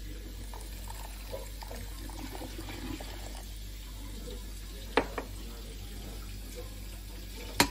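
Water poured from a glass mug into a glass bowl of jelly powder, splashing for the first few seconds. Then two sharp knocks, one about five seconds in and a louder one near the end.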